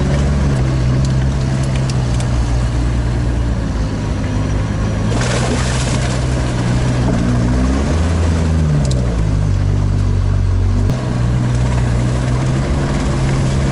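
Sherp all-terrain vehicle's diesel engine running steadily as it crosses a waterlogged bog. About five seconds in there is a short rush of splashing water, and around eight seconds the engine note rises and falls.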